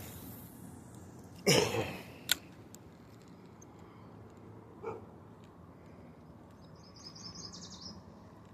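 A short, loud rush of noise about a second and a half in, with a few sharp clicks around it, then a small bird's quick high trill near the end.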